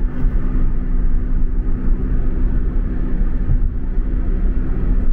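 Road noise heard inside a moving car's cabin: a steady low rumble of tyres and engine, with a faint steady hum.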